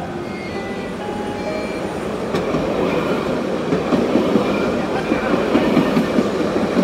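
Jerusalem Light Rail tram passing close by, its wheels rumbling on the rails and growing louder as it goes past.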